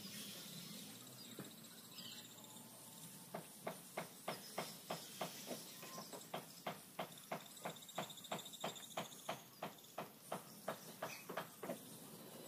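Light, even tapping on the wooden boat hull as it is worked by hand, about three taps a second, starting a few seconds in and stopping near the end.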